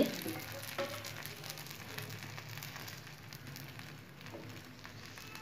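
Rice-flour and semolina uthappa batter sizzling in an oiled pan on the heat: a steady, quiet crackling hiss.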